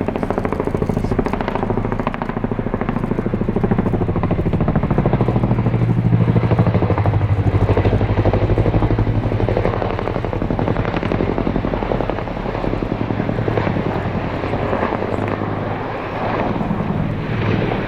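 Boeing Chinook tandem-rotor helicopter flying, its rotor blades beating in a rapid, even chop over a low steady drone; it grows louder to a peak about six to eight seconds in, then eases off slightly.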